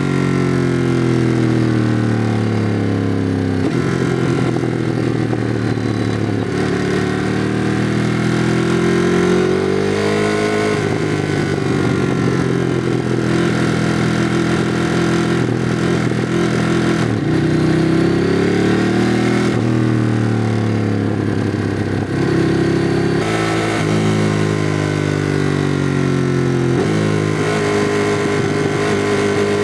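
2016 Ducati Monster 821's L-twin engine running through its stock exhaust on the move. Its revs climb and fall again and again, with several sudden drops in pitch between the climbs.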